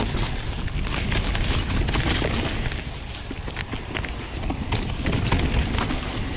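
A 2016 Nukeproof Mega 275 mountain bike descending a steep dirt trail: tyres rumbling over the ground, with many sharp rattles and clicks from the bike as it hits bumps.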